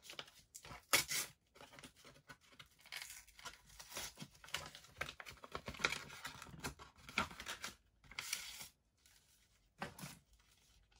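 Paper envelope being torn open by hand and its contents rustled: a run of short ripping and crinkling noises, busiest in the middle, with a few separate rips near the start and end.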